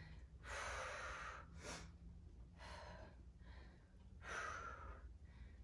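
A woman breathing hard with exertion during a strength-training set: several breaths in and out, about one a second, some longer and some short.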